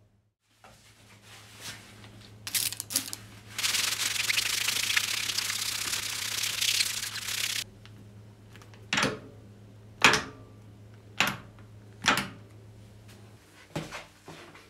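Schaublin 22 milling machine under power on its first run: a steady electric hum throughout, with a loud rasping noise for about four seconds near the middle. Then the spindle speed selector is turned, giving a series of sharp clicks about a second apart.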